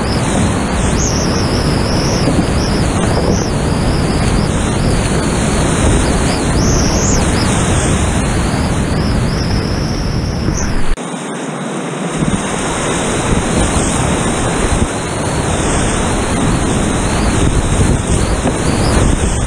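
Whitewater rapids rushing and churning close around a kayak, a loud steady roar of water with splashing right at the microphone. About eleven seconds in, the deep rumble suddenly drops away and the rush carries on a little lighter.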